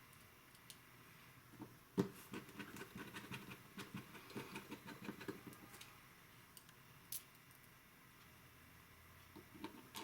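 Faint light clicks and taps of small tools and phone parts being handled while a phone is reassembled, with a sharper knock about two seconds in and a run of quick ticks after it.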